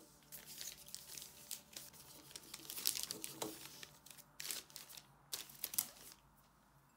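Clear plastic piping bag crinkling in irregular bursts as it is opened out and fitted over a tall plastic beaker.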